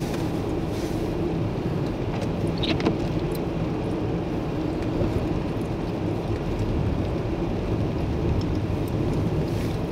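Car driving on compact snow and ice: a steady engine drone over tyre and road noise.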